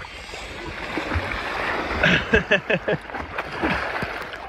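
Water splashing and sloshing right at the microphone as a zipline rider drops into the water nearby and spray flies over the camera. The splashes are loudest about two to three seconds in.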